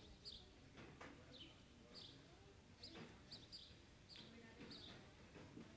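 Faint bird chirping: short, high, downward-sliding chirps repeated about twice a second over a quiet background.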